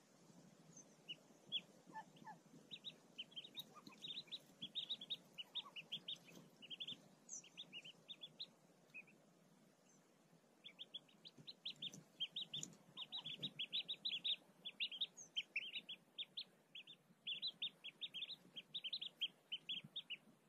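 Newly hatched mallard ducklings peeping under the brooding hen: rapid runs of short, high peeps that pause briefly midway, then start again.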